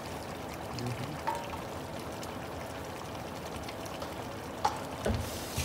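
Food bubbling and sizzling steadily in a pan on the stove, with a few light utensil knocks about a second in and near the end.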